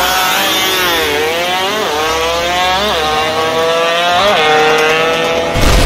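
Jet ski engine accelerating away, its note swinging up and down with the throttle, with quick blips about two, three and four seconds in. Near the end a loud rushing noise comes in over it.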